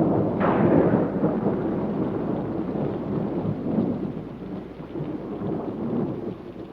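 Thunder rumbling and slowly dying away over steady rain, with a sharp crack about half a second in.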